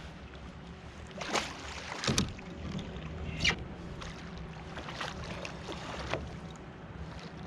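Several sharp splashes of water at a fishing kayak, about five over a few seconds, over a steady low hum.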